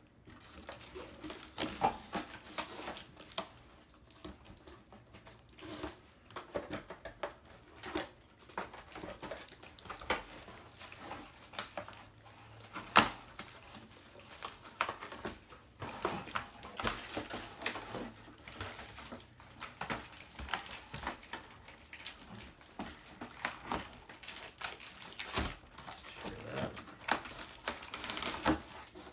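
A cardboard box being handled while a replica championship belt is worked out of it: irregular rustling, scraping and light knocks, with one sharp knock about thirteen seconds in.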